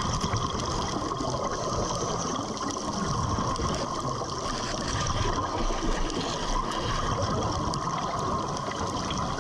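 Steady underwater noise of bubbling and trickling water, an even hiss with no breaks.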